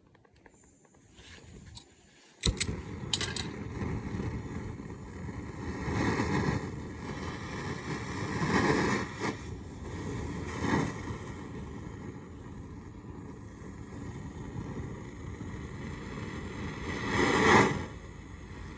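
Gas brazing torch lit with sharp clicks about two and a half seconds in, then its flame burning with a steady rushing sound that swells a few times, loudest near the end.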